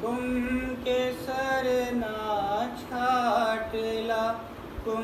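Devotional song: a voice singing a slow, drawn-out melodic line over sustained musical accompaniment.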